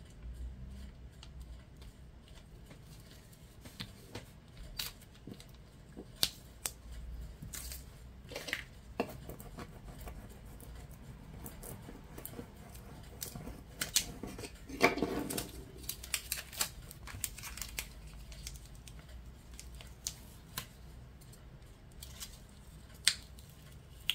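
Vinyl stencil under transfer tape being handled and burnished with a plastic scraper card: scattered light clicks and crinkles, with a denser stretch of rubbing about fifteen seconds in. Near the end the tape crackles as it is peeled from its backing paper.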